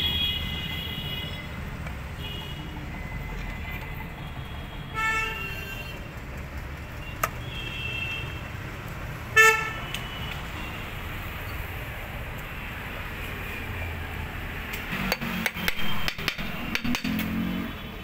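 Steady low rumble of street traffic, with a vehicle horn tooting briefly twice, the second toot louder. Near the end comes a run of sharp metal clicks and knocks as the halves of a motorcycle crankcase are fitted together.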